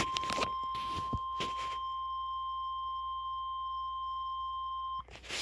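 NOAA Weather Radio's warning alarm tone, a steady single-pitch tone (the 1050 Hz attention signal) that signals an emergency alert is about to be read. A few short hissing crackles sound over it in the first two seconds, and the tone cuts off suddenly about five seconds in.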